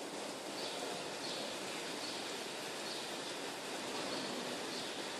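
Steady machine and air noise of a rotary milking parlour, with a faint high hiss repeating about every two-thirds of a second.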